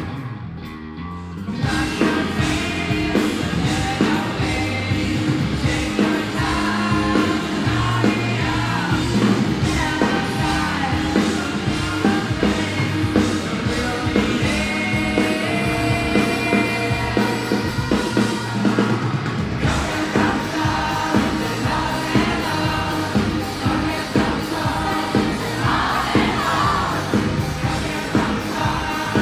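Live rock band playing a song, with a lead singer over drums, bass and guitar. The band thins out briefly at the start, and the full band comes back in about two seconds in.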